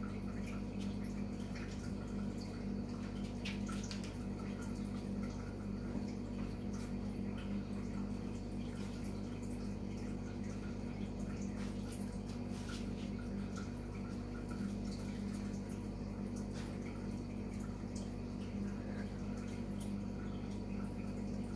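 A steady low hum with faint dripping or trickling water and scattered light ticks.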